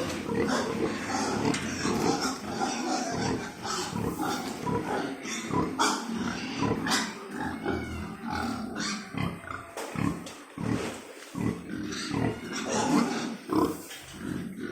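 Pigs grunting, with many short, irregular calls overlapping.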